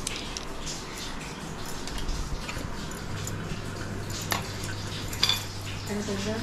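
Steel spoon scraping and clinking against a steel bowl as Eno fruit salt is worked into dhokla batter, with two sharper clinks in the second half. A low steady hum comes in about halfway.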